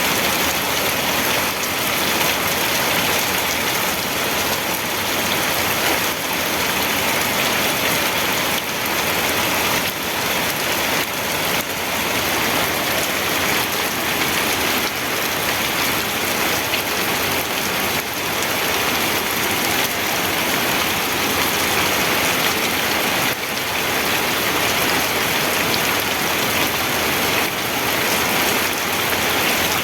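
Steady rainfall pattering on a surface, a dense, even hiss of drops with no thunder.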